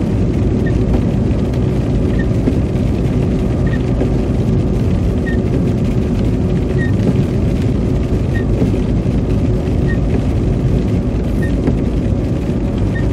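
Steady low road and tyre rumble inside a car driving on a wet, slushy road, with a faint short tick repeating about every one and a half seconds.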